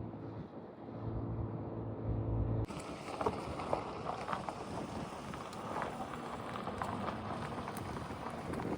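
A vehicle engine hums steadily, then cuts off abruptly a little under three seconds in. Outdoor wind noise on the microphone follows, with scattered light clicks and taps.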